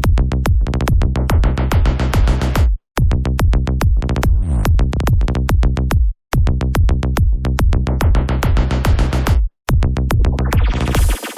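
Electronic dance music with a steady beat of sharp, bass-heavy hits. It stops dead for three short breaks, then changes near the end to a thinner section without the low bass.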